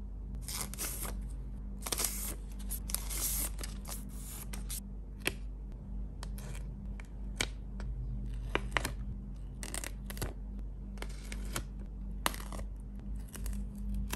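Paper sticker sheets in plastic sleeves being handled, then stickers peeled off their backing paper with tweezers: longer rustling for the first few seconds, then a string of short, crisp papery peels and crackles over a faint steady low hum.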